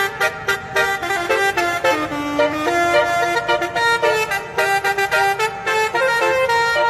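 Telolet-style multi-tone musical horn playing a quick melody, a run of short toots with a few longer held notes.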